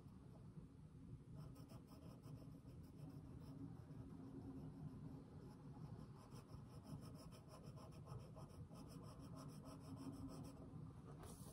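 Faint scratching of a graphite pencil on paper: quick, repeated back-and-forth shading strokes that start about a second in and stop shortly before the end.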